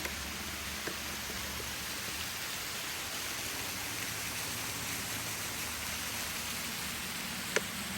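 Steady rushing of a waterfall, with a sharp click near the end.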